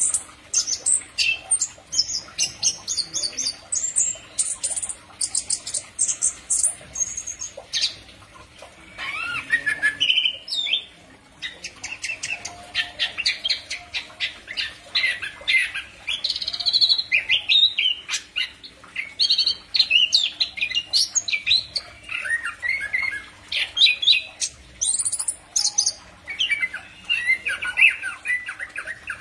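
Chestnut-capped thrush (Zoothera interpres) singing a long run of quick, varied chirps and whistled phrases, with a couple of short breaks.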